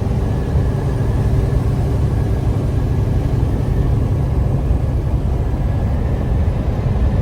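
Truck cab noise while driving down the highway: a steady low engine and road rumble with a faint steady hum above it.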